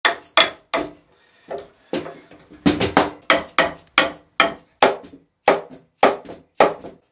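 A mallet repeatedly striking the wooden frame of a child's rocking chair, knocking apart tight joints between the seat and the spindles and legs. The sharp knocks come about three a second, with a few lighter taps about a second in.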